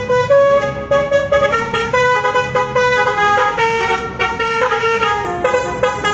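Tour bus's Basuri telolet horn playing a tune: a continuous run of loud horn notes stepping between pitches a few times a second.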